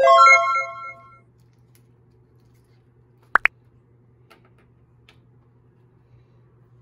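Plastic cap of a white glue bottle being twisted open: a high squeak lasting about a second, then two sharp clicks a little past the middle, with a few faint ticks after.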